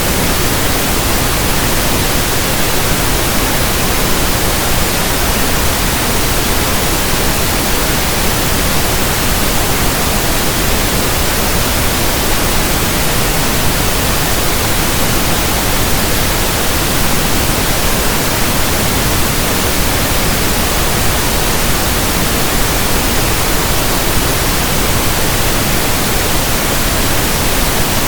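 Steady pink noise: an even, unchanging hiss across all pitches.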